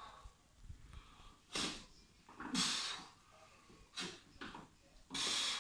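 A man breathing forcefully, with four sharp, hissing breaths about a second or so apart, one with each press of a 16 kg kettlebell overhead.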